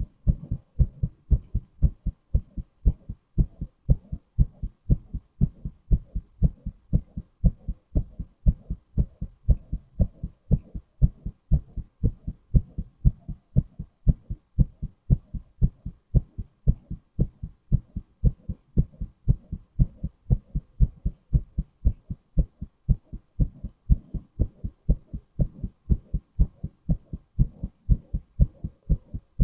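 A man's heartbeat: a steady, even rhythm of low, muffled double thumps, lub-dub.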